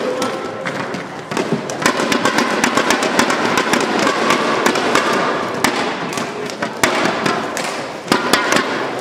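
Crowd applause in a sports hall: dense, crackling hand claps mixed with the slaps of plastic clapper sticks, growing louder about two seconds in and easing off near the end.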